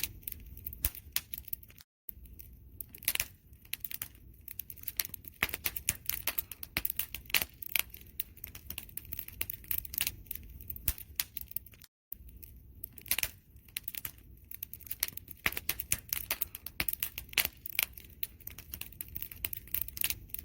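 Wood fire crackling: a steady bed of irregular pops and snaps. The sound cuts out completely for an instant twice, about two seconds in and again about ten seconds later.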